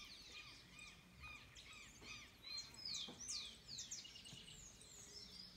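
Birds chirping and singing faintly, many short quick notes sweeping downward in pitch from several overlapping voices, busiest around the middle.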